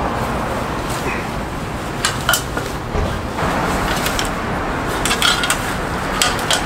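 Stepladder clicking and rattling as a person climbs down it, with several sharp clinks over a steady background hiss.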